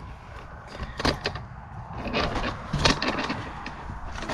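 Handling noises: several sharp clicks and knocks over a low rumble.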